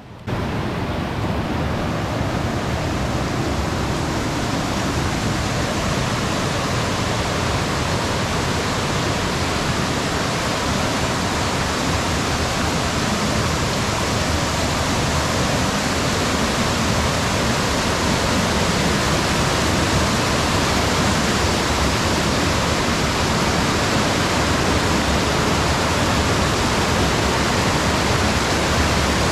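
Loud, steady rush of a rainforest waterfall's falling water, cutting in abruptly right at the start.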